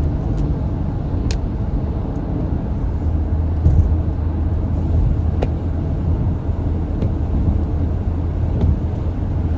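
Steady low rumble of a car's engine and tyres on a snowy road, heard from inside the cabin, with a few faint ticks.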